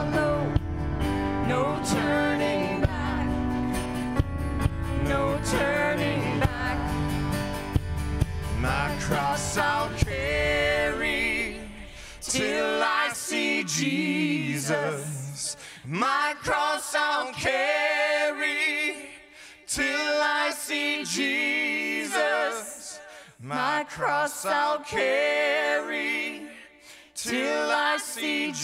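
Church worship band playing a hymn with drums, acoustic guitar and keyboard under male and female voices singing together. About twelve seconds in the band drops out and the voices carry on almost unaccompanied, with a few sharp hits.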